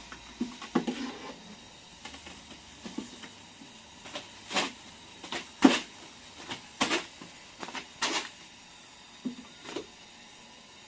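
Thin wooden rolling pin knocking and clacking against a round wooden board as flatbread dough is rolled out thin: irregular knocks, with a run of louder ones in the middle.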